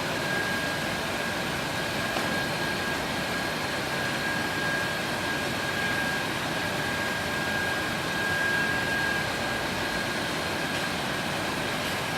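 Automatic carton-feeding shrink-wrapping machine running: a steady mechanical whirring with a thin, steady high whine through it.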